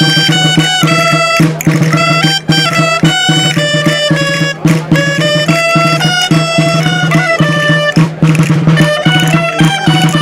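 Dolçainas, Valencian wooden shawms, playing a lively traditional folk dance tune in quick stepping notes over a steady low held note.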